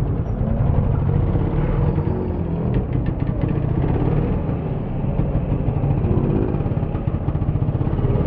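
Small motorcycle engine revving up and down while the rider holds it in a long wheelie, its pitch rising and falling again and again.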